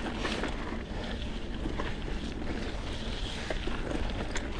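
Mountain bike rolling over a dirt trail, with wind rumbling on the microphone and a few small clicks and rattles from the bike.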